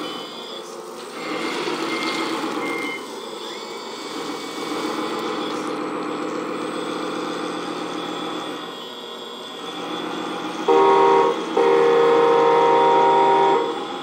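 Radio-controlled articulated dump truck tipping its bed, with crushed rock sliding and pattering out onto a concrete floor over the whir of its motors. Near the end a truck horn sounds twice, a short blast then a longer one of about two seconds; this is the loudest sound.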